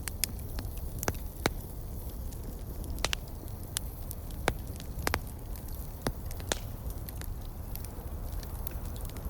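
Wood campfire crackling, with irregular sharp pops over a steady low rumble.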